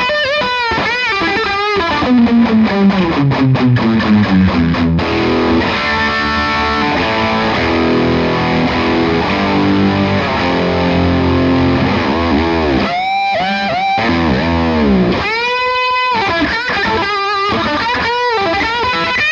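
Electric guitar played through an Iannucci Audio King of Tone, a Bluesbreaker-style dual overdrive, with its Overdrive and Distortion channels stacked, giving a distorted tone. It plays lead lines: bent notes with vibrato, then a descending run, held chords in the middle, and more bends with vibrato near the end. Despite the stacked gain the tone stays clear and defined, with little hiss.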